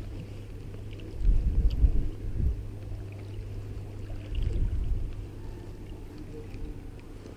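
Creek water running steadily, with two low rumbles on the microphone, one about a second in and another around four and a half seconds.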